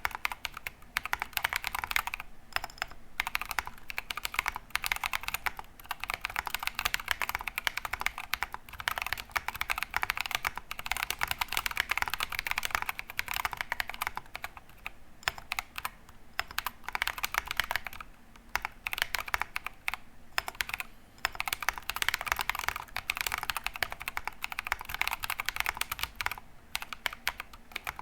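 Continuous fast typing on a GK68XS mechanical keyboard with unlubed Drop + Invyr Holy Panda tactile switches and MT3 Susuwatari keycaps: a dense stream of keystroke clacks, broken by a few brief pauses.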